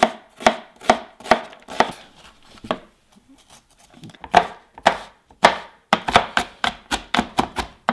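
Kitchen knife chopping onion and then jalapeño on a wooden cutting board: sharp knocks of the blade on the board, about two a second at first, a quieter stretch in the middle, then quicker chopping of about five a second near the end.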